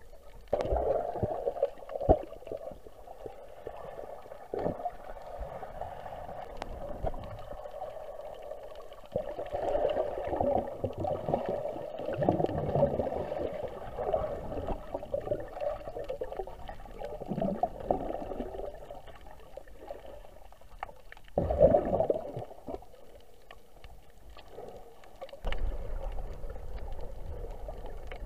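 Muffled underwater water noise heard through a camera's waterproof housing: irregular sloshing and gurgling that swells and fades, with a few sharp knocks and a louder burst near the end.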